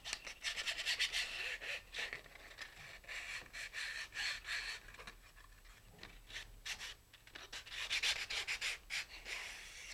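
Sandpaper on a sanding block rubbing along the edges of a thin wooden glider fuselage boom in quick back-and-forth strokes, smoothing it. The strokes are busier near the start and again near the end, with a softer stretch in between.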